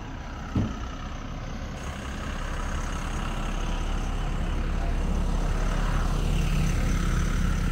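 Heavy truck diesel engine running, a steady low hum that grows louder over the first few seconds and then holds steady.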